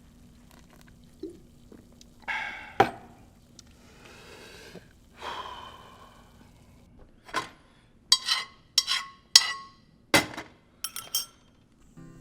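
A series of sharp clinks and knocks of hard objects, coming thickest in the second half, with a few short swishing sounds between them.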